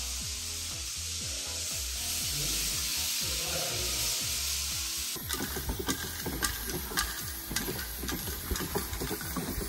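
Background music under a steady hiss for about five seconds, then an abrupt change to a run of quick scratchy taps and scrapes.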